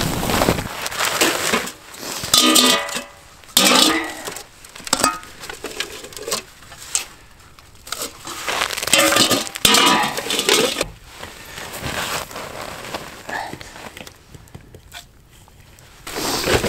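Steel dog bowls and a pot clinking and clattering in irregular short bursts, with quieter gaps between, as sled-dog food is mixed and portioned.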